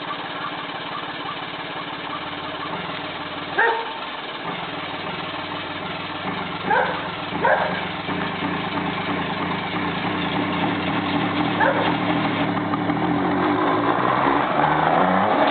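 1963 Saab 96 bullnose's engine running at idle, then revved up, rising in pitch and growing louder over the last few seconds. A dog barks a few short times over it.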